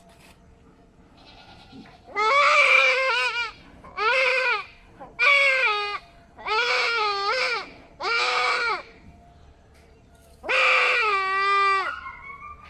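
Male goat bleating loudly in distress, six drawn-out cries in a row, while it is being castrated by a vet.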